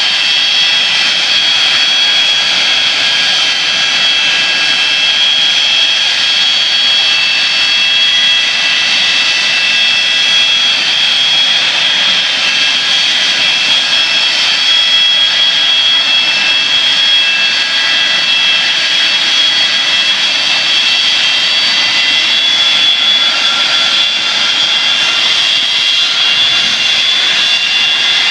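Boeing 727-200's Pratt & Whitney JT8D turbofan engines running at idle: a loud, steady jet whine with a few high tones that shift slightly now and then.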